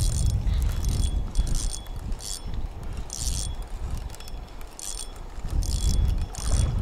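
Spinning fishing reel ratcheting in about ten short, irregular bursts while a large common carp is played on a heavily bent ledger rod, over low wind rumble on the microphone.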